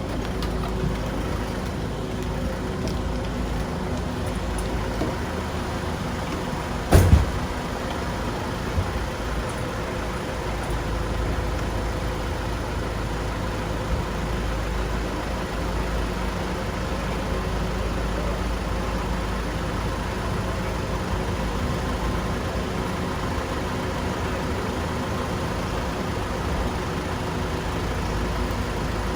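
Steady road traffic with a vehicle engine idling close by, a constant hum throughout. A single sharp knock stands out about seven seconds in.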